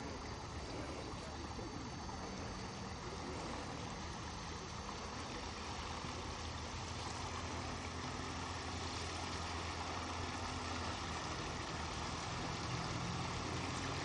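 A steady low motor hum under an even wash of wind and water noise, growing slightly louder toward the end.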